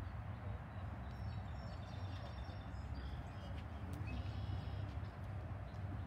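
Steady low rumble, with small birds chirping faintly about a second in and again around four seconds.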